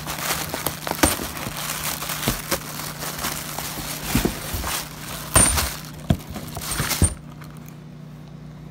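Plastic air-cushion packing rustling and crinkling as a hand rummages through a cardboard shipping box, with several sharp clinks and knocks, about one second in and three times between five and seven seconds in. It goes quieter for the last second and a half.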